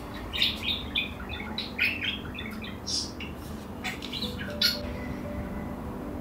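Birds squawking and chirping in a quick run of short, sharp calls that stops a little before the end, over faint background music.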